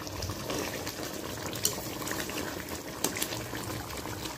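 Chilli coconut-milk gravy bubbling at a simmer in a pot, with scattered small sharp pops. The clearest pops come about one and a half and three seconds in.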